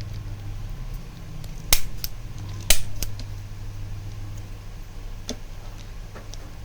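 Manual chiropractic adjustment gun firing twice, a sharp click each time about a second apart, each followed by a lighter click, with a fainter click later.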